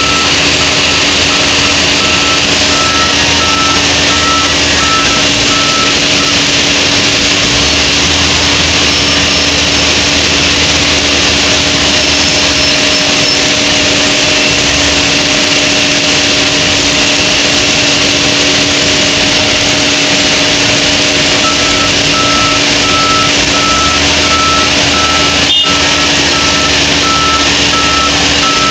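LOVOL wheel loader's diesel engine running steadily as it works, with deeper surges in stretches. Its reversing alarm beeps in a regular series for the first several seconds and again from about three-quarters of the way through. A single sharp knock near the end.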